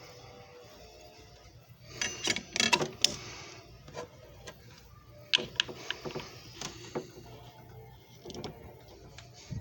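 Irregular light clicks and clatter of something being handled, with a busy run of rattling about two seconds in and a few sharper single clicks a few seconds later.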